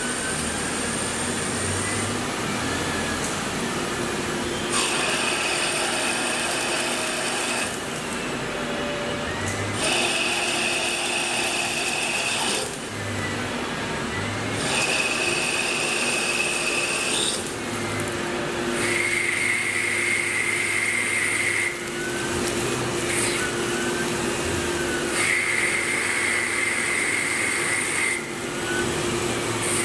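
Tormach Slant-Pro CNC lathe turning and boring a steel spindle under flood coolant. A steady machine hum and coolant spray run throughout, and each cutting pass adds a high-pitched whine that lasts about three seconds and then stops. There are about five passes, with the last two whining at a lower pitch.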